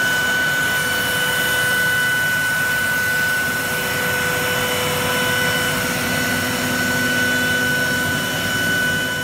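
Techno 4x8 HD CNC router milling its table flat with a 1¼-inch surfacing bit: a steady whine from the spindle over the even rush of the machine's vacuum hold-down and dust extraction.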